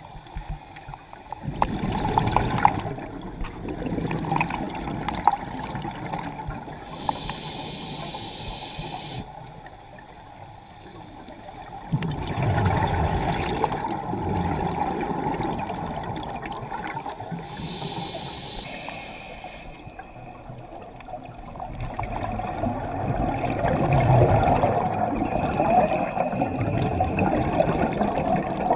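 Scuba diver breathing through a regulator underwater: long bubbling exhalations of several seconds alternate with two short hissing inhalations, in a slow cycle of about ten seconds.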